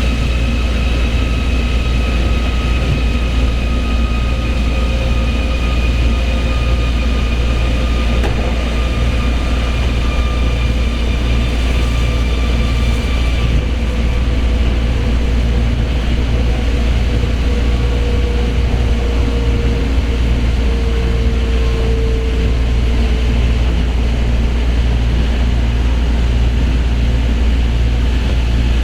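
Osaka Monorail train running between stations, heard from inside the passenger car: a steady low rumble from its rubber tyres on the concrete guideway beam, with a faint motor whine above it.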